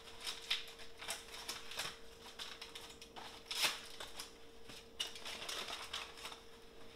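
Aluminium foil being crinkled and peeled back by hand as a hot foil packet is opened: irregular dry crackling rustles, with one louder crackle about halfway through.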